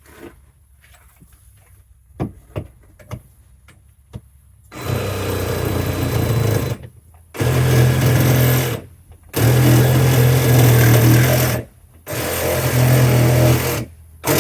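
Power saw cutting through plastic drain pipe in four runs of about two seconds each, stopping briefly between them. A few light handling knocks come before the first run.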